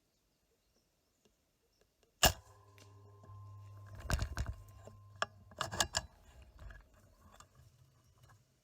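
A single PCP air rifle shot, one sharp crack about two seconds in, followed by a low hum and two clusters of metallic clicks and rattles from the rifle being handled.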